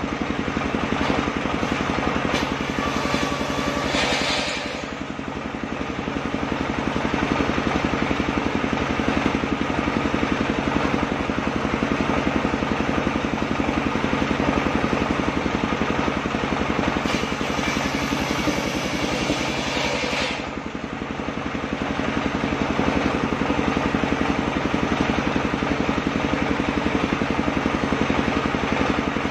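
Circular sawmill machine running with a steady, continuous machine drone. The sound drops and dulls briefly twice, about four seconds in and again about twenty seconds in, then comes back up.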